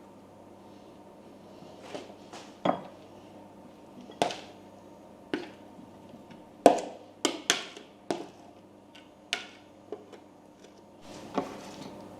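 An irregular series of about a dozen light knocks and clinks of hard objects being handled or set down, bunched together in the middle, over a faint steady hum.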